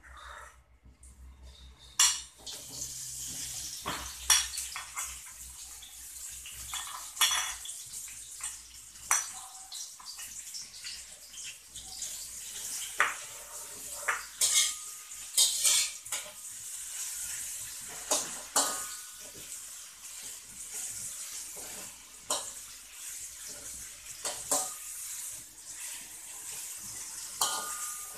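Sliced shallots, onion and ginger sizzling in hot oil in a metal wok, starting suddenly about two seconds in. Through the sizzle, a metal spatula scrapes and knocks against the wok as the aromatics are stirred.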